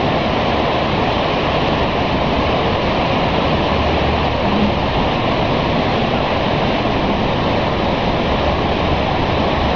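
Steady, loud rush of the flooded Delaware River's fast-moving water.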